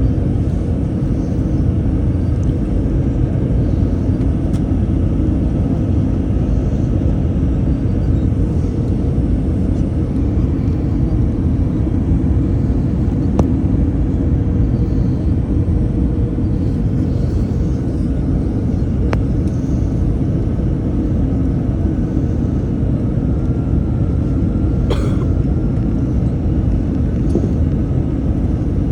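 Cabin noise inside an Airbus A321-200 on approach: a loud, steady, low rumble of engines and airflow, with a few faint clicks and a brief rattle near the end.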